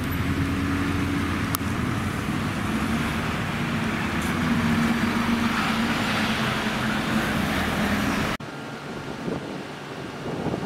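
Road traffic with a city bus's engine running close by, a steady engine hum over the tyre and traffic noise. It cuts off abruptly about eight seconds in to a quieter wind-like hiss.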